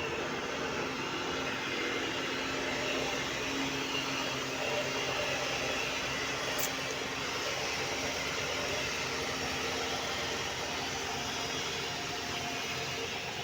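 Diesel engine of road-construction machinery running steadily, an even mechanical drone with a low hum underneath. A brief high tick sounds about six and a half seconds in.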